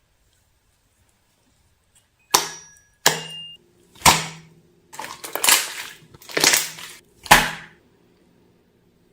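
Homemade slime being handled, giving a series of about six sharp pops and crackles, each fading quickly, starting a couple of seconds in.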